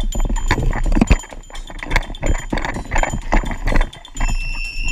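Irregular knocks and clattering of footsteps and rifle-and-gear handling against a body-worn camera as the wearer moves, with a low buffeting rumble on the microphone. Near the end a short, steady high whistle-like tone sounds.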